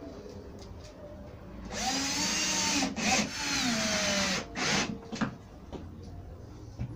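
Cordless drill-driver driving a screw into the back of an MDF cabinet: the motor runs for about a second, stops very briefly, then runs another second and a half with its pitch falling near the end, followed by a short final blip.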